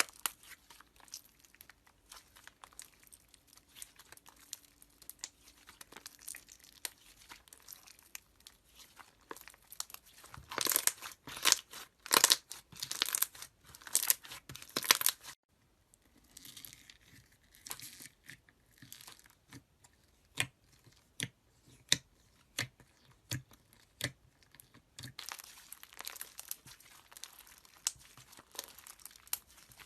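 Slime being squeezed and pressed by hand, giving a fine crackle and sharp popping clicks. It goes briefly quiet about halfway through, then comes a run of separate pops, then a denser crackle near the end.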